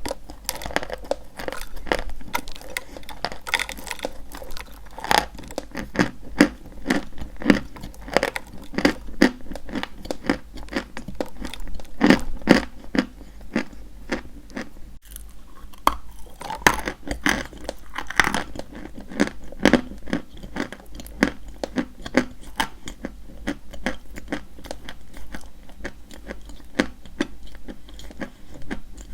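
Dry white chalk being bitten and chewed, a continuous run of crisp crunches and clicks that thins out after the midpoint.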